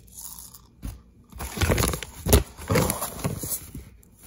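Measuring cup scooping dry rice out of a plastic rice bag: the bag crinkles and the grains rustle and crunch as they shift, with a sharp knock a little past two seconds in.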